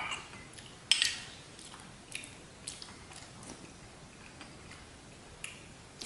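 A metal spoon clinks sharply against a ceramic bowl about a second in while scooping up a dessert, followed by a few faint mouth clicks and chewing sounds of eating.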